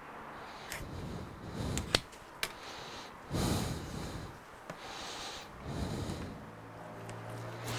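A tablet being handled and slid onto a perforated metal plate: scattered clicks and knocks, the sharpest about two seconds in, with short shuffling sounds of gloved hands. A low steady hum starts near the end.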